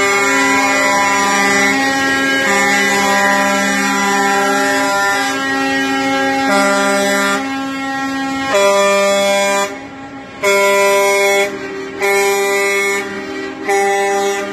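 Air horns of semi-truck tractors passing in a convoy, several horns sounding at once in long steady overlapping chords. In the second half they break into separate blasts of about a second each, with short gaps between.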